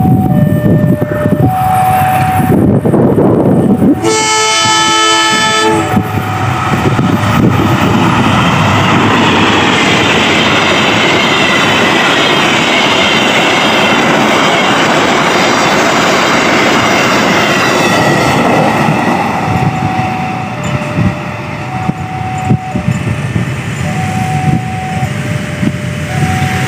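A level-crossing warning alarm alternates between two tones, then a locomotive horn sounds for about two seconds. A passenger train's wheels then clatter past on the rails, and the two-tone crossing alarm is heard again near the end as the train moves away.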